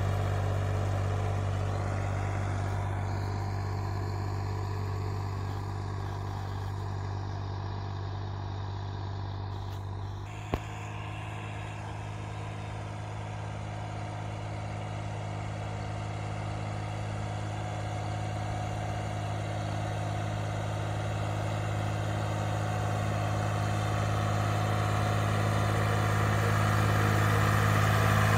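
Ford 4000 SU tractor's three-cylinder engine running steadily while spreading fertilizer. It fades as the tractor moves away, there is a single click about ten seconds in, and then it grows steadily louder as the tractor comes back close.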